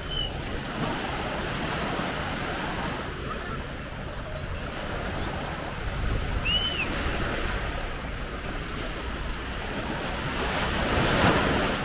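Sea waves washing onto a beach, with wind buffeting the microphone; a wave swells to its loudest near the end.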